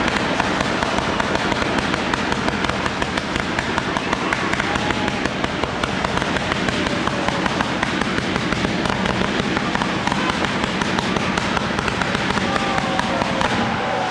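Fireworks crackling in a fast, dense run of small pops, several each second.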